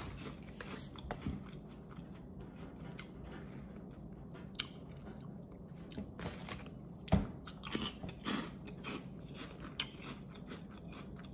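A light, airy puffed wheat snack being chewed: faint, sparse crunching and mouth sounds, with a few louder crunches past the middle.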